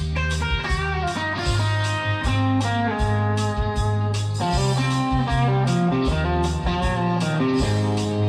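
Background music: electric guitar playing a blues-style tune over a steady bass and beat.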